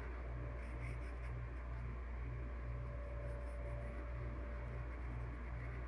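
Faint scratching of handwriting on workbook paper as the numeral 10 is written. Under it runs a steady low hum that pulses about twice a second.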